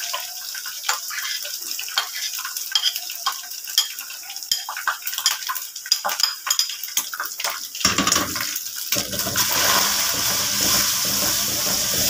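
A steel spoon scrapes and taps minced garlic off a plate into a pan of hot oil with fried onions, over a light crackle of frying. About eight seconds in, a loud, steady sizzle starts as the garlic fries in the hot oil.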